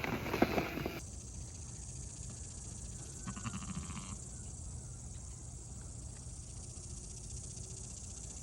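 A cow's loud moo trails off in the first second, then steady cricket chirping.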